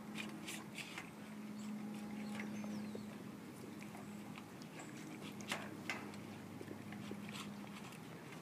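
Doberman gnawing and chewing on a frozen raw chicken quarter in a metal bowl: scattered crunches and clicks of teeth on meat and bone, the two loudest about five and a half and six seconds in, over a steady low hum.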